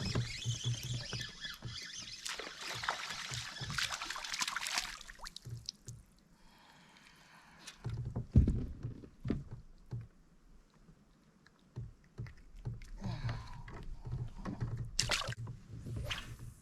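Water splashing and dripping around a kayak, mixed with small clicks of handling gear. There is a hard knock about eight seconds in, the loudest sound.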